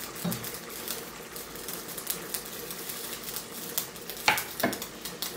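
Minced-meat tomato stew bubbling in a stainless-steel pan, a steady fine crackle of many small pops. Two sharper clicks come about four seconds in.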